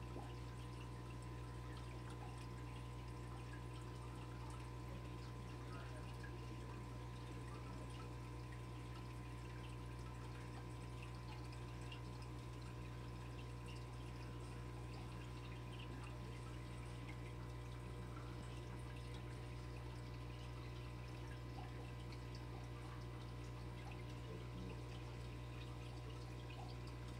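Aquarium running: a steady low electric hum with faint trickling and bubbling water.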